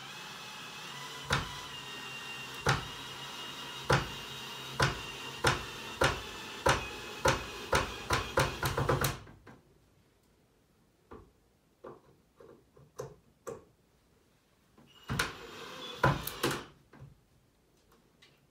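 Hammer blows on the wooden frame of a fish-tank stand being assembled: about a dozen sharp knocks, coming faster and faster over a steady hum, then stopping. Scattered light clicks follow, then a second short run of knocks near the end.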